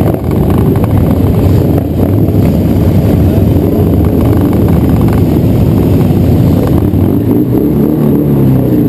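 Motorcycle engines running at low speed, the camera bike's engine loud and steady, with a rev that rises and falls near the end.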